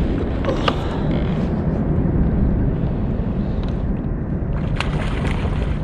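Steady low rumbling noise on the microphone, with a couple of brief sharp clicks, one near the start and one near the end.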